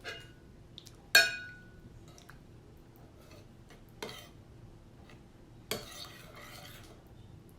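Kitchen utensils and containers being handled over a marinade bowl while sauce is added. One sharp clink with a short ring comes about a second in, then a knock, then a couple of seconds of faint scraping.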